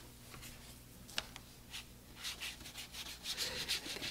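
Watercolor brush scrubbing and swirling paint in a palette's mixing well: faint rubbing strokes that come quicker in the last two seconds, with a light click about a second in.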